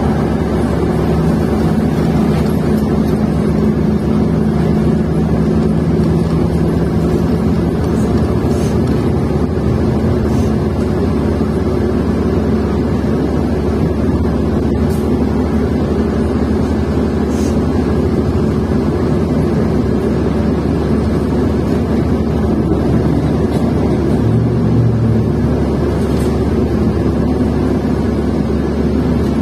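New Flyer XN40 city bus with a Cummins Westport ISL-G natural-gas engine and Allison B400R transmission, running with a steady low rumble. A held drone in the first several seconds fades out, and a brief lower hum comes in near the end.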